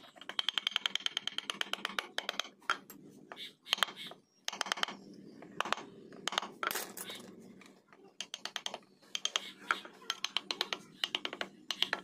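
Mallet striking a wood-carving chisel cutting into teak, in quick runs of light taps several strokes a second, with short pauses between runs.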